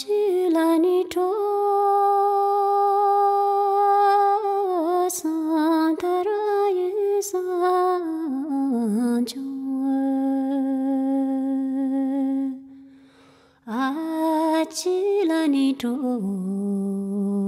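A single voice singing slowly without instruments: long held notes with ornamented bends in pitch, breaking off for about a second near the middle of the passage.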